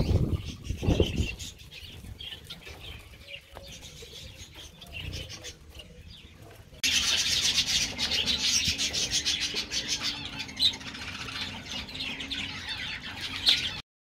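Aviary birds chirping and chattering, with wing flaps around the start. About seven seconds in, the chatter jumps to a louder, busier chorus, then cuts off suddenly just before the end.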